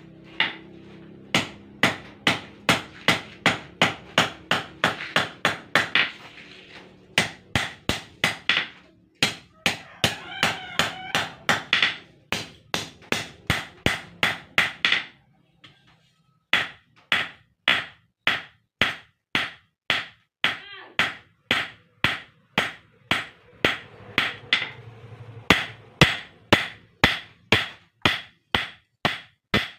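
Hand hammer forging a red-hot steel blade, cut from a motorcycle brake disc, on a round post anvil: steady rhythmic blows, about two to three a second, with a short break about halfway through.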